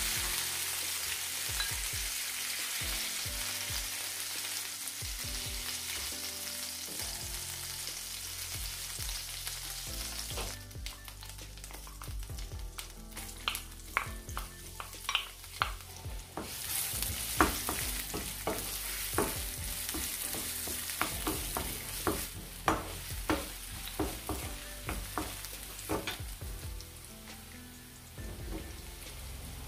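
Hot oil sizzling in a frying pan, with the hiss dropping back about ten seconds in and then rising again as sliced onion and garlic go in. Many sharp knocks and taps follow as a wooden spoon scrapes the onion off a plate and stirs it against the pan.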